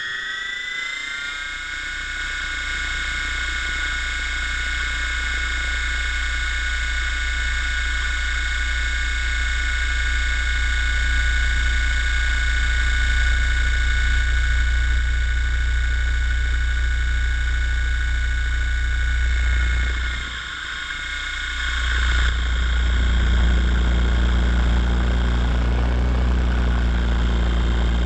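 Helicopter running: a whine that rises in pitch over the first second or two and then holds steady, over a steady low rumble that briefly drops away about twenty seconds in.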